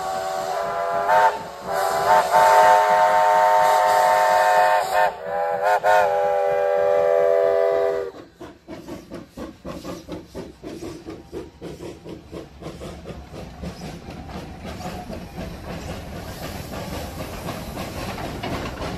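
Steam locomotive whistle blown loud and long for about eight seconds, broken by a few short gaps. It cuts off, and then come the rhythmic exhaust chuffs and steam hiss of two steam locomotives working past close by.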